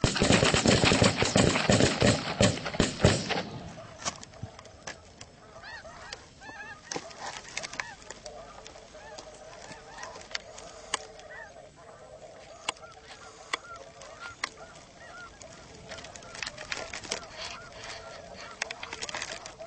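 A flock of snow geese calling in flight, with many overlapping honks throughout. The first three seconds or so are covered by a loud rushing noise.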